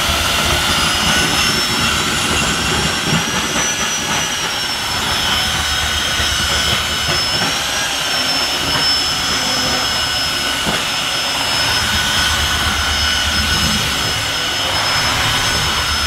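Tineco Floor One S3 cordless wet-dry floor washer running, suction motor and brush roller picking up spilled water, with a steady high whine. The whine climbs in pitch over the first few seconds as auto mode raises the suction on sensing the wet, dirty floor.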